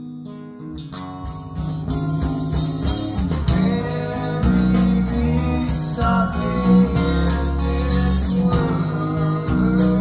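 Recorded music with guitar and bass playing through Magnepan 3.7i planar magnetic speakers, heard in the room. A fuller, louder band with a strong bass beat comes in about a second in.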